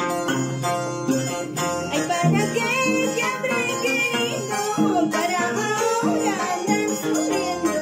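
A harp plays a steady plucked accompaniment, and a woman's singing voice comes in about two seconds in.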